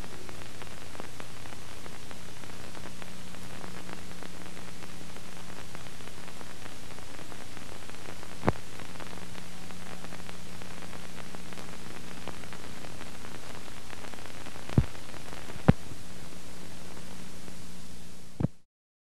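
Steady static hiss with a faint low hum from a blank stretch of analog videotape, broken by three sharp clicks, then cutting off abruptly to silence near the end.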